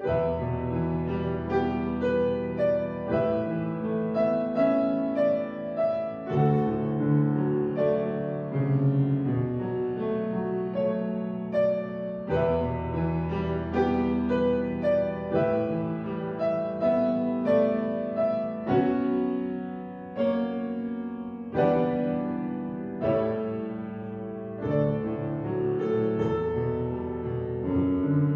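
Piano playing slow chords over long-held bass notes.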